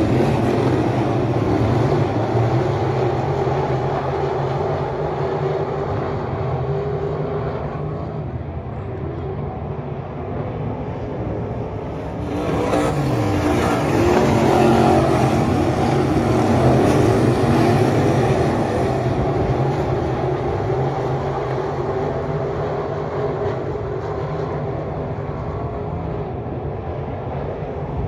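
A field of IMCA Modified dirt-track race cars running under power around the oval, their V8 engines making a continuous loud drone. About halfway through it gets louder as cars pass close by, and one engine's pitch drops as it goes past.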